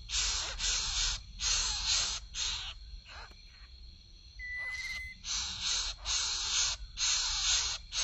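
Greater coucal nestlings giving harsh, rasping begging calls in a rapid series of short bursts, about two or three a second. The calls pause briefly a little past the midpoint, then resume.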